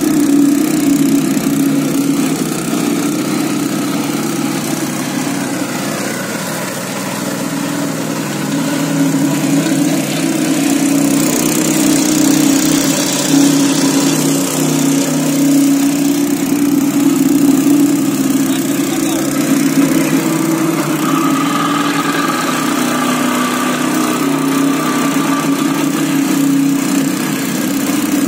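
Plate compactor's Honda 5 HP single-cylinder four-stroke petrol engine running steadily, with the belt-driven plate vibrating as it compacts loose soil.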